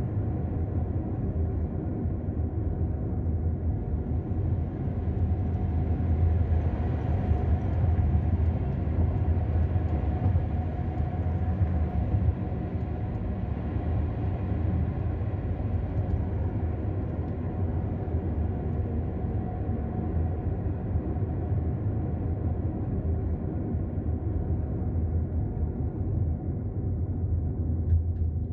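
Steady low rumble of a car driving along a road, engine and tyre noise as heard from inside the cabin.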